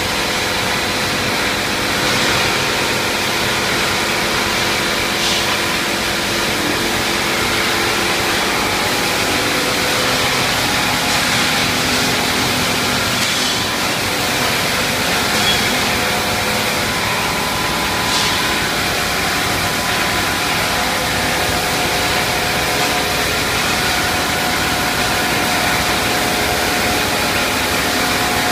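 Steady machinery noise from a running PVC pipe extrusion line: motors, drives and pumps running together, with several held tones over a constant hiss.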